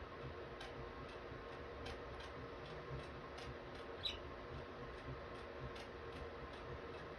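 Faint, irregular small clicks and ticks from budgies moving about the cage, with one brief soft chirp about 4 seconds in, over a steady low hum.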